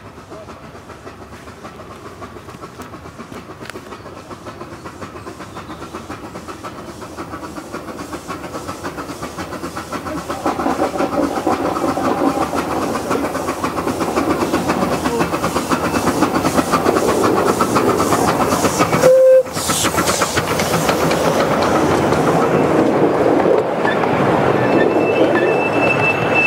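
Miniature steam locomotive approaching and passing with its train, its chuffing and the clatter of wheels on the rails growing steadily louder, then carriages rolling past close by. A sudden short burst comes about two-thirds of the way through, and a thin high tone sounds briefly near the end.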